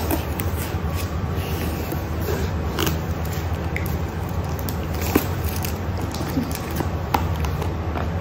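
Clear plastic Ferrero Rocher box crackling and clicking as it is handled and its lid pried at, a few sharp clicks spread through, over a steady low hum.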